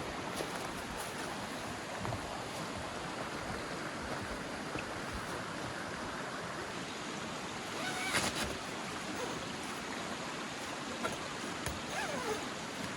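Steady outdoor rushing noise, with a brief louder rustle about eight seconds in.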